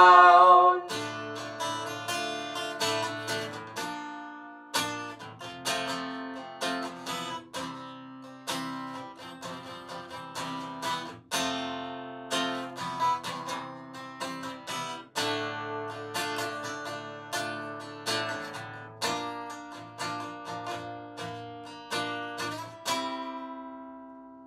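Acoustic guitar strumming chords in an instrumental break of a rock ballad, with strokes that ring on between them; the last chord rings out and fades away near the end.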